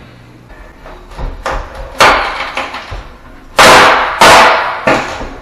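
Crowbar prying the wooden top header of an old pocket door out of its wall framing: a series of sharp knocks and bangs, the two loudest a second or so past the middle, each fading over about half a second.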